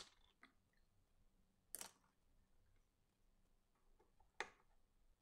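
A few light clicks and taps of painting tools handled on a wooden desk: a paintbrush set down right at the start, then two more taps about two seconds in and near the end, in an otherwise near-silent room.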